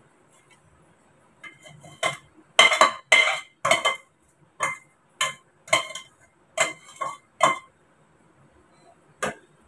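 Metal spoon knocking and scraping against a stainless steel pan as sticky dry-fruit burfi mixture is emptied out onto a steel plate: about a dozen sharp clinks in quick succession, then one more near the end.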